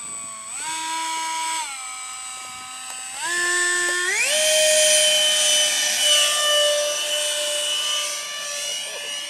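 Electric ducted fan of an Exceed F-4 Phantom RC jet whining as it is throttled up in steps while held for a hand launch. It reaches full throttle about four seconds in, and the jet leaves the hand and flies off, its pitch falling slightly as it goes away.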